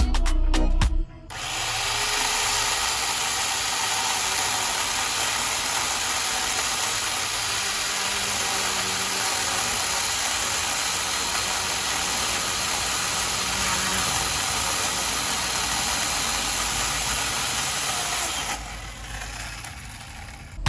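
Hyper Tough 9-amp 14-inch corded electric chainsaw running, its motor and chain spinning with a steady whirring hiss. It starts about a second in and drops off near the end.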